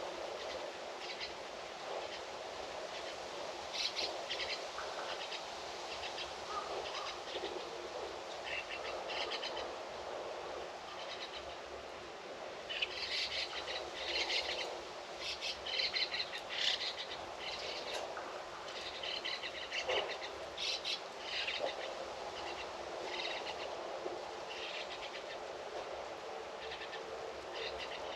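Songbirds chirping and calling outdoors in quick short bursts, busiest in the middle stretch, over a steady background hiss of outdoor ambience.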